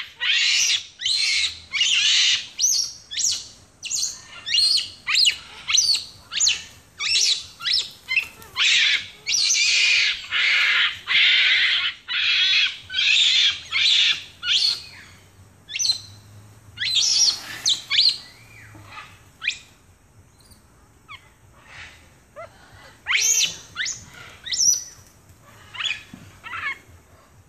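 Capuchin monkeys giving rapid, high-pitched squeals and chirps, several a second, as a group gangs up on one monkey. After about fifteen seconds the calls thin out to scattered squeals.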